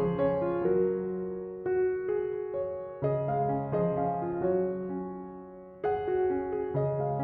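Background music: a gentle piano melody, its notes struck one after another and each fading away.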